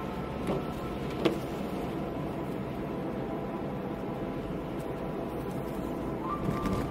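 Steady road and engine noise inside a moving car on a wet road, a low even rumble, with one short sharp click about a second in.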